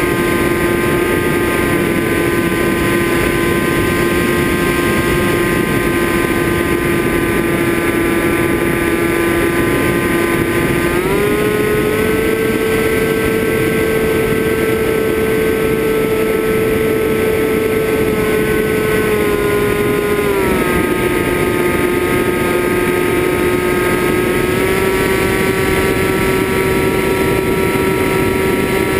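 FPV drone's brushless motors and propellers whining steadily. The pitch steps up about eleven seconds in, drops back around twenty seconds and edges up slightly again near the end as the throttle changes.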